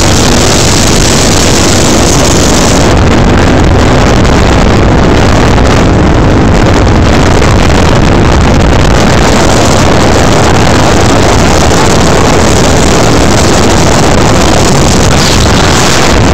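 Yamaha Raptor 700 quad's single-cylinder engine running at speed, heard from a moving car and mixed with heavy wind rumble on the microphone. Very loud.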